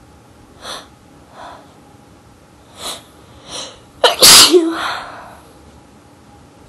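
A person sneezing once, loudly, about four seconds in, after four short breathy catches that build up to it. The sneeze was provoked with sneezing powder and a toothpick.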